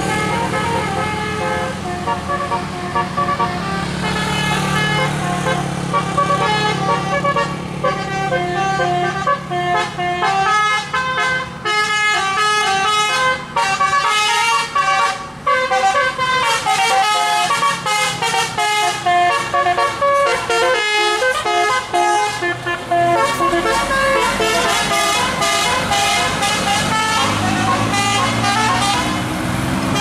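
Tour bus's multi-tone 'telolet' musical air horn playing a fast, stepping melody of many short notes over the rumble of the bus engine, with an engine note rising in pitch near the end.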